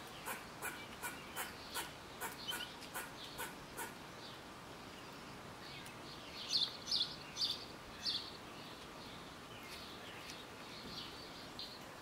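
Small birds chirping: a steady run of short, evenly spaced chirps, two or three a second, for the first four seconds. A few louder, higher chirps follow about halfway through, and softer ones come near the end.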